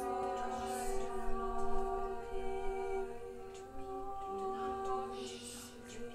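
Several voices singing long wordless held notes together, a slow layered drone whose pitches change only now and then. A short breathy hiss rises over it about five seconds in.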